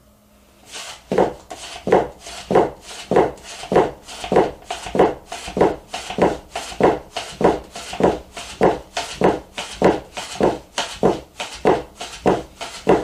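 Soba knife chopping through folded buckwheat dough, each cut ending in a knock of the steel blade on the wooden board. The cuts come in a steady rhythm of about three a second, starting about a second in.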